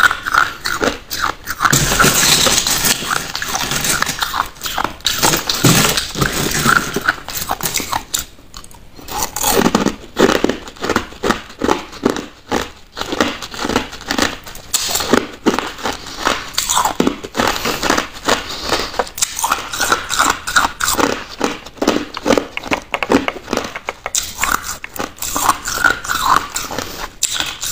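Crushed ice being chewed: loud, rapid, close crunching and crackling of ice between the teeth, with a brief lull about eight seconds in.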